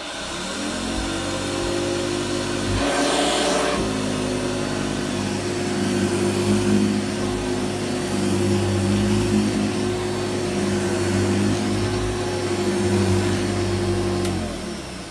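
1985 Hoover U7008 upright vacuum cleaner's motor starting up, running steadily and very quietly, then winding down near the end as it is switched off. A brief rush of noise about three seconds in.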